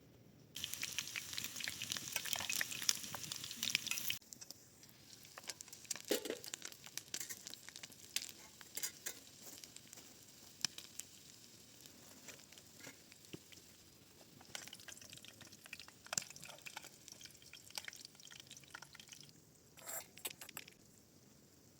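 Food sizzling in hot fat in a pan, a dense crackle that starts suddenly and cuts off after about three and a half seconds. Scattered small clicks and taps follow, like stirring and handling in the pan.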